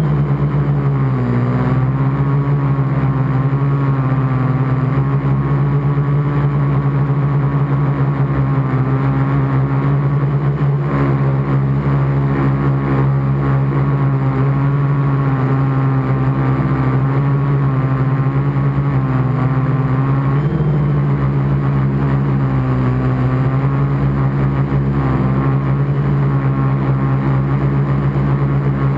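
Gaui 500X quadcopter's electric motors and propellers humming steadily close to the on-board camera in flight. The pitch dips and comes back up with throttle changes about a second in, at about eleven seconds, and at about twenty seconds.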